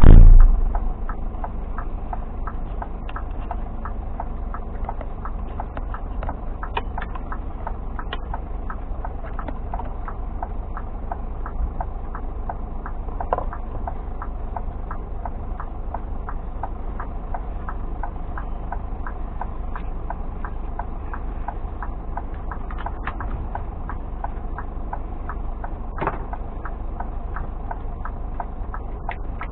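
Scania G460 truck's 13-litre straight-six diesel idling, heard from inside the cab as a steady low hum with light ticks scattered throughout. A heavy thump right at the start.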